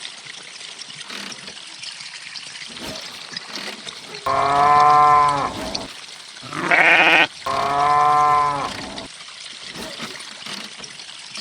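Farm animal calling three times, each call about a second long and level in pitch, the middle one shorter and higher.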